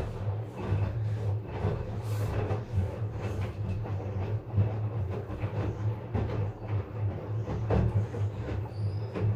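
LG front-load washing machine running on its rinse-and-spin cycle: a steady low motor hum with frequent irregular knocks and rattles from the machine.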